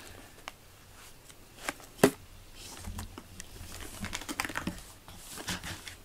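A cat's paws and claws scratching and rustling on a corrugated-cardboard scratcher bed as it turns around and settles in, a run of light clicks and scratches with one sharper click about two seconds in.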